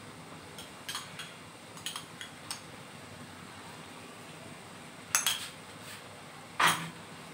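Metal spoon clinking against cookware: a few light clicks, then two louder ringing clinks near the end.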